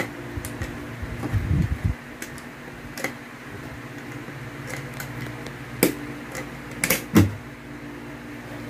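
Stainless metal latches on a motorcycle top case clicking and clacking as they are worked and flipped open by hand, with a few dull knocks of the case being handled. The sharpest clicks come about six and seven seconds in, over a steady fan hum.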